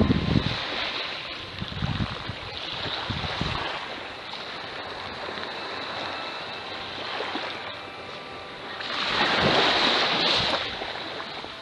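Small waves washing in on a sandy beach, with wind buffeting the microphone. One wash swells loudest about nine seconds in and lasts over a second.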